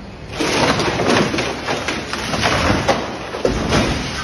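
A large tree falling and crashing to the ground: a sudden loud rush of snapping wood and breaking branches starting about half a second in, with a heavy thud near the end.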